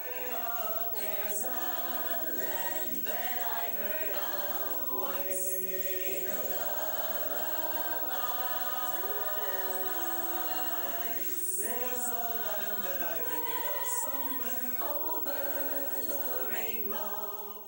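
Choir singing in harmony: many voices holding chords that shift every second or so.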